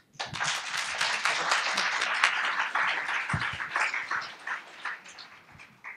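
Audience applauding: many hands clapping together, tailing off over the last couple of seconds.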